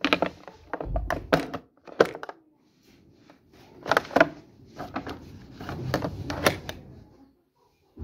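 Sharp plastic clicks and knocks as a small perfume atomizer and bottles are handled in a clear plastic blister tray. The clicks come in clusters, with a quiet gap about three seconds in.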